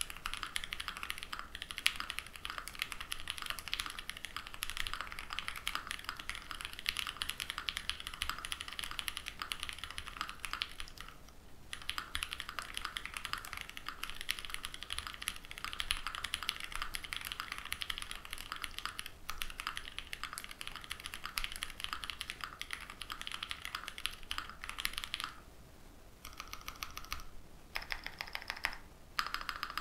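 Mechanical keyboard typing fast and steadily: an ai03 Vega with lubed Pewter light-tactile switches on a full aluminium plate, under GMK keycaps, with one short pause about 11 s in. About 26 s in, the typing gives way to separate single presses of the modifier keys, each click standing alone.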